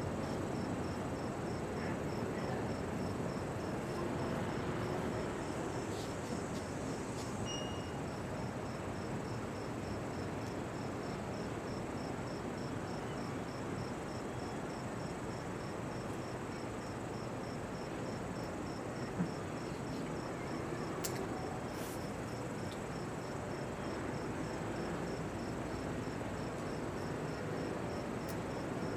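An insect, a cricket by its sound, chirping in an even rhythm of about two chirps a second over a steady low background hum.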